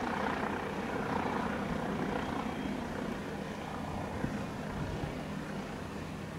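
Twin turbofan engines of a Cessna 550 Citation II business jet as it lands. A rushing jet noise is loudest in the first two seconds and then fades as the jet rolls out along the runway.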